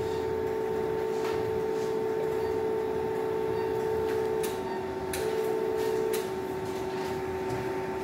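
Electrosurgical (diathermy) generator sounding its steady activation tone while the wire loop electrode fulgurates the bladder lining. The tone cuts out about four and a half seconds in, comes back for about a second, then stops, leaving a lower steady tone and a few faint clicks.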